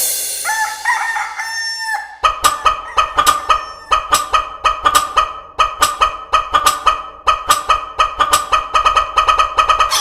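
Desi rooster crowing once, then a long run of quick chicken clucks repeating in an even, dance-like rhythm.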